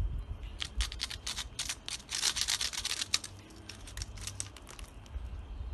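A run of sharp, irregular clicks and crackles, densest about two seconds in and thinning out towards the end, over a low steady rumble.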